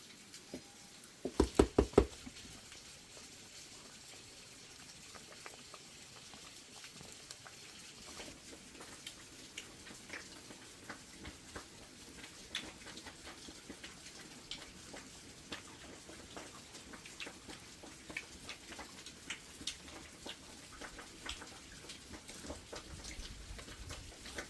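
A quick run of about five sharp knocks about a second in, then many faint, scattered ticks and patter.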